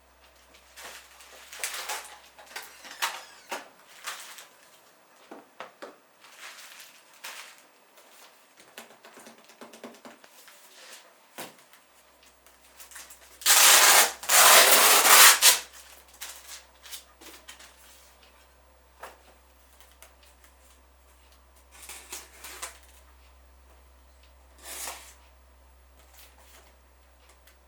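Intermittent rubbing and rustling from PC parts and their packaging being handled, with one loud rasping noise lasting about two seconds midway.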